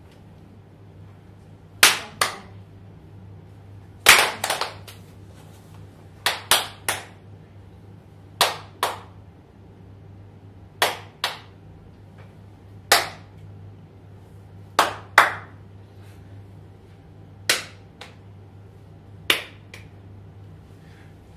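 Sharp percussive cracks, like claps or taps, coming singly or in quick groups of two or three about every two seconds, each ringing briefly in the room.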